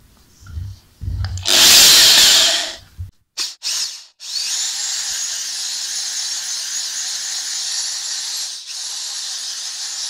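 Electric drill boring through the white plastic strain-relief junction of a MagSafe charger cable, held in pliers. It gives a loud burst about a second and a half in and a few short bursts, then runs steadily from about four seconds until near the end, with a brief dip toward the end.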